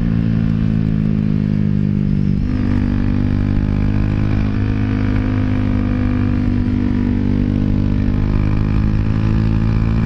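Dafra Next 250 motorcycle's single-cylinder engine running through a Jeskap GP Carbon aftermarket exhaust while riding. The engine note holds steady, shifts about two and a half seconds in, then holds steady again.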